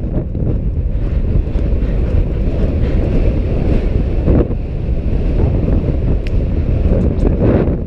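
Heavy wind buffeting the microphone of a rider's head-mounted camera during a fast gallop on horseback: a steady, fluttering low rumble.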